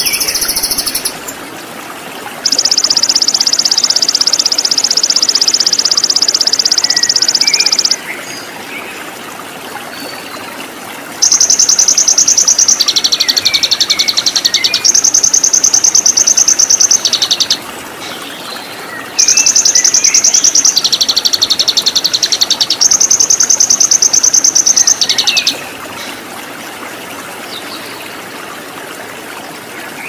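Songbird singing three long, very rapid high-pitched trills of several seconds each, the later two stepping between a higher and a lower pitch, over a steady rush of waterfall water.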